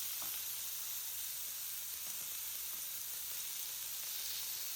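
A steady, even sizzling hiss at a constant level.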